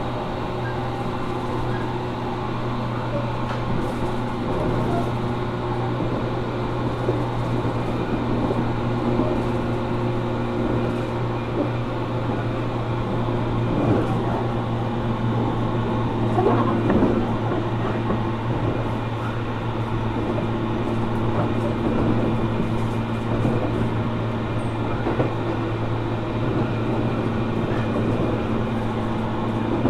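Running sound inside a JR Kyushu 415 series 1500 subseries electric train's motor car, a car known for an abnormal running noise, cruising between stations: a steady motor and gear hum with a few knocks from the track.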